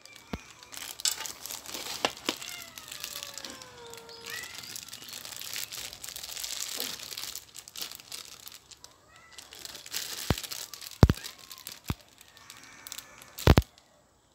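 Plastic bag crinkling as a bag-gloved hand picks apart a cooked fish over a bowl of rice, with cats meowing now and then, including a long falling meow about two and a half seconds in. Several sharp knocks come in the last few seconds, the loudest about eleven seconds in and again near the end.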